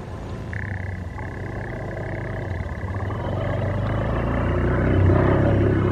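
An approaching CC 201 diesel-electric locomotive: its engine rumble grows steadily louder, and a long horn blast starts abruptly about half a second in and holds for several seconds.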